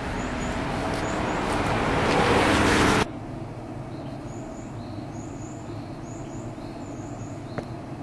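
A small route bus's engine and tyres growing steadily louder as it comes up the road, cut off suddenly about three seconds in. Then birds chirping in short, high calls over a low steady hum.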